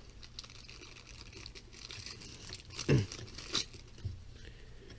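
Thin clear plastic bag crinkling faintly in short scattered rustles as a small battery charger is worked out of it.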